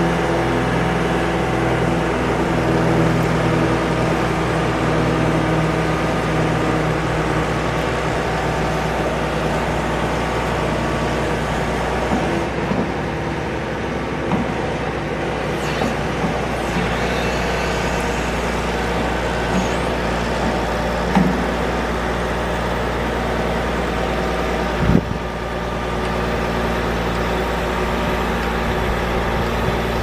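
John Deere 710D backhoe's diesel engine running steadily under varying load as the boom and bucket are worked out and back. Late on there is one sharp clunk.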